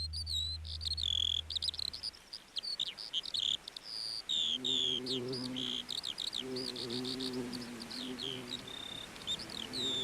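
Rapid bird-like chirps and short downward-sweeping whistles. A low held drone fades out in the first two seconds, and from about halfway low steady musical tones come and go beneath the chirping.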